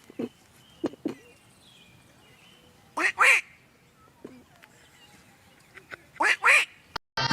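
Duck quacking: a loud double quack about three seconds in and another near the end, with a few fainter short calls about a second in.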